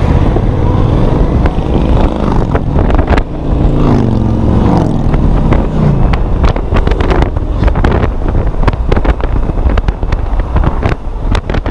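Yamaha FZ-07's parallel-twin engine pulling under acceleration, its pitch climbing from about three to six seconds in, with heavy wind buffeting on the microphone.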